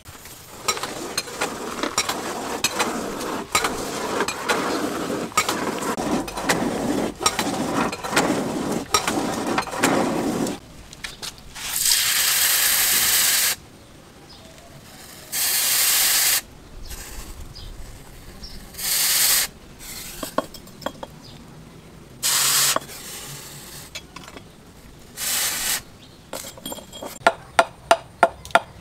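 Hot steel axe head, forged from a car axle, quenched in a water trough for hardening: loud hissing sizzles each time it is plunged in, five dips, each shorter than the last. Before the dips comes about ten seconds of dense scraping and rattling. Near the end a steady run of sharp chops into wood begins.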